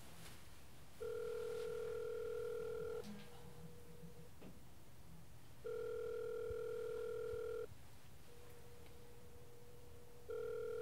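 Telephone ringback tone heard while a call rings out: a steady two-second tone, three times, about four and a half seconds apart, each followed by a fainter short tone.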